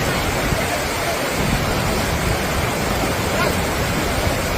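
Heavy, fast-flowing water rushing steadily, a continuous even roar of swollen water.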